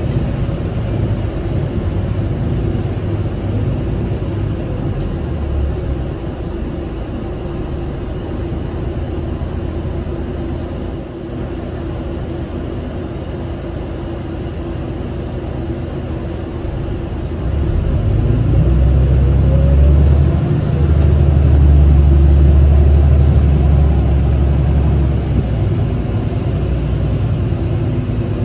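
Mitsubishi Fuso Aero Star city bus heard from inside the cabin: its diesel engine and road noise run steadily, then the engine grows much louder about two-thirds of the way through.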